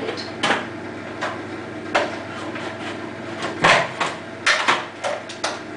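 Hard plastic clacks and knocks as a food processor's lid is found and fitted onto the bowl, about seven sharp knocks with the loudest about three and a half seconds in, over a steady low hum.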